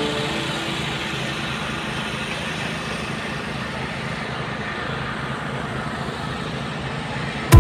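Steady outdoor background noise, an even hiss with a low rumble, as the end of some music fades out at the start.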